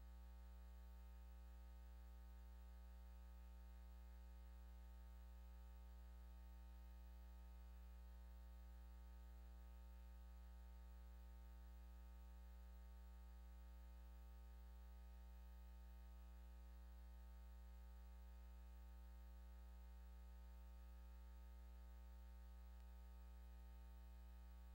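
Near silence: a faint, steady electrical hum, unchanging throughout.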